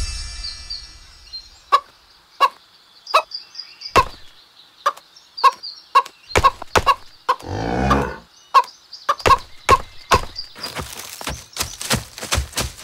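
Cartoon sound effects: a string of short, sharp taps that come faster near the end, with one low, drawn-out groan a little past halfway and faint high chirps behind.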